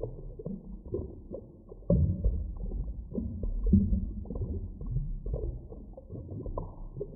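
Underwater ambience: a low rumble with short, deep moaning calls and scattered clicks, swelling louder about two seconds in and again near four seconds.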